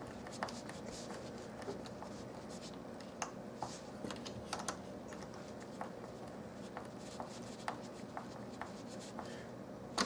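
Faint, irregular small clicks and ticks of a Phillips screwdriver being turned by hand, driving a screw into a plastic sliding-door stopper, roughly one click a second.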